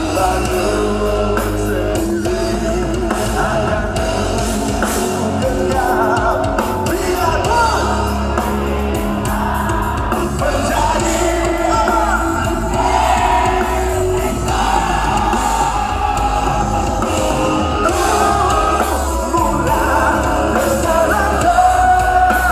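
Live rock band performing loud through a PA: singing over electric guitars, bass and drums, with shouts.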